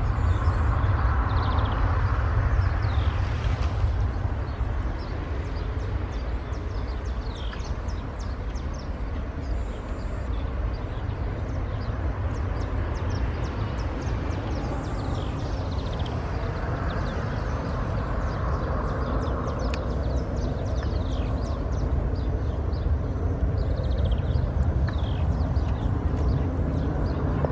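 Airbus A319 jet engines at takeoff power as the airliner lifts off and climbs away, a steady deep rumble that eases a little after the first few seconds.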